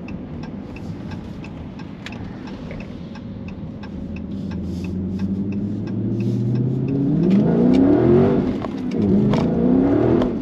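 Dodge Charger's V8 engine running steadily, then rising in revs twice in the second half, with a dip between, as light throttle spins the rear tyres on the wet road. Faint, evenly spaced ticks sound throughout.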